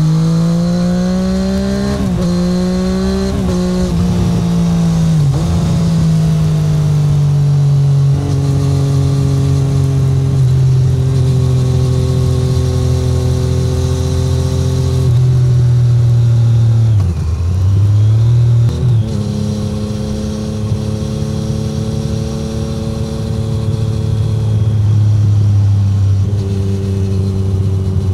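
Exhaust note of the 2017 Triumph Street Triple 765R's 765 cc inline three-cylinder engine through an SC Project SC1-R titanium exhaust, with no wind noise. In the first few seconds the revs climb and drop back through quick upshifts, and then the bike holds a steady cruise. A little past halfway the revs dip and then jump back up sharply, like a downshift with a blip, before it settles into steady cruising again.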